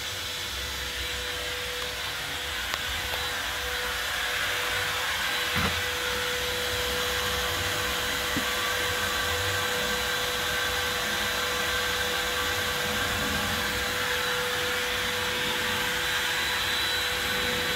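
Makita router spindle running steadily while the MPCNC machine carves a relief into a pine board, a constant whine over the noise of the bit cutting wood. A small knock about five and a half seconds in.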